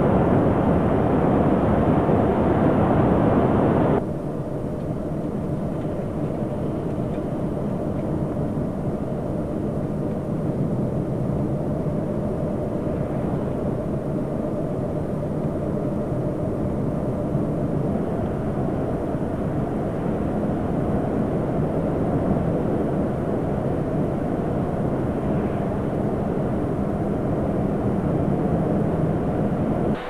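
Steady road and engine rumble inside a moving vehicle's cabin at highway speed. About four seconds in it drops suddenly to a quieter, duller rumble.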